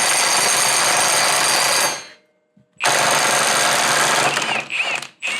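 Impact wrench hammering at a 30 mm axle nut to break it loose: a long burst of about two seconds, a short pause, a second burst of nearly two seconds, then two brief blips near the end.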